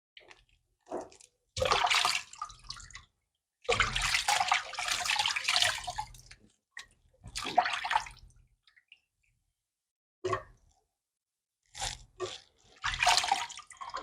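Hands washing dried fish in a bowl of water: the water sloshes and splashes in about six separate bursts with short silent pauses between, the longest lasting nearly three seconds.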